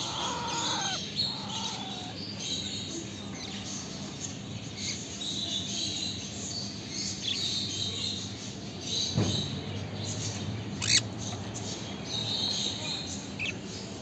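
Parrot chicks squawking and chirping in short, repeated calls: the begging calls of chicks being hand-fed formula.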